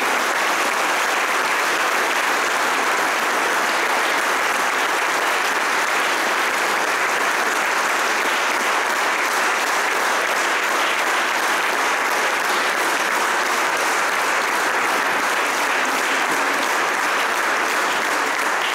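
Audience in a hall applauding steadily and continuously.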